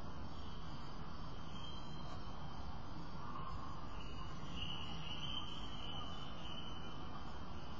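An insect trilling at a high, even pitch over a steady low background hum: a short stretch about a second and a half in, then a longer, louder one from about four and a half seconds to near the end.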